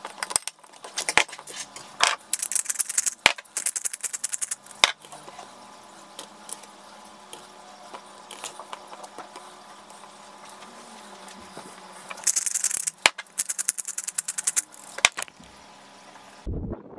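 A pepper grinder twisted in two bursts of rapid crackling clicks, a couple of seconds in and again past the middle, with scattered knife scrapes and light taps on a ceramic plate between them.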